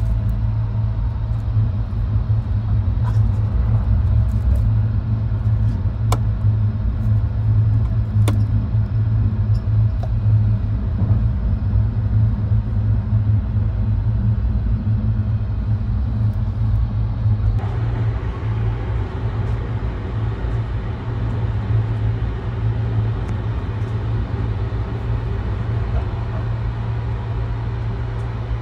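Steady low rumble of a Sunrise Express 285-series sleeper train running, heard inside a compartment, with a few light clicks. About two-thirds of the way in, more hiss joins the rumble.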